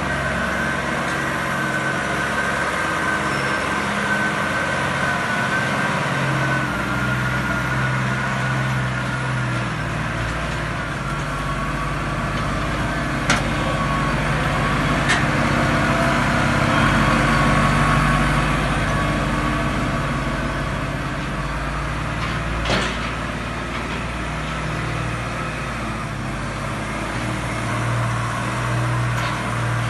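Massey Ferguson 6716S tractor engine working as the tractor pushes and climbs the silage clamp with a buckrake, its note rising and falling with the load. A few sharp knocks come through, two in the middle and one later.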